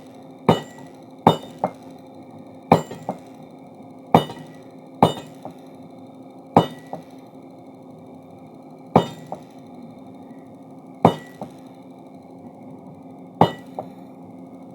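Hammer blows on steel being forged into a crowbar, ringing metallically. A heavy strike is often followed by a lighter one, every one to two seconds with longer gaps later, over a steady low hum.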